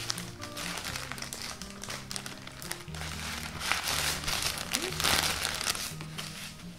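Plastic mailer bag crinkling and rustling as it is cut open with scissors and the package pulled out, with intermittent bursts loudest past the middle. Background music with held bass notes runs underneath.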